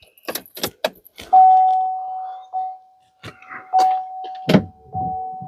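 A car's warning chime dings repeatedly, one steady tone about every second, after a few sharp clicks, with a couple of thumps partway through.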